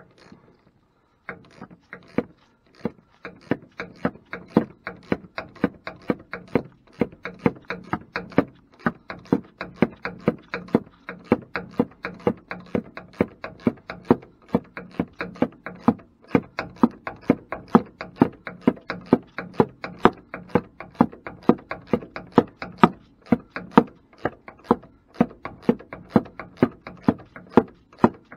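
Hand ratchet clicking in an even rhythm, about three clicks a second, as it tightens the top mounting nut on a truck's front shock absorber. The clicking starts about a second in.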